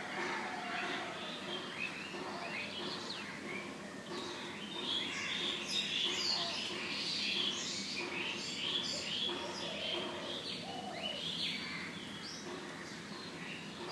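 Several wild birds chirping in a morning chorus: many short, overlapping chirps and quick pitch glides. The calls are busiest through the middle stretch.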